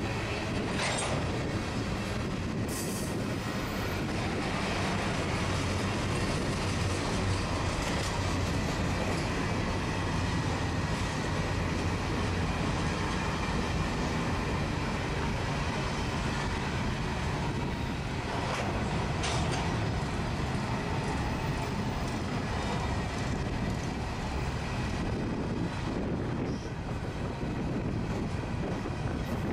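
Covered hopper cars of a freight train rolling past: a steady rumble of steel wheels on rail, with a few sharp clicks from the wheels and couplers.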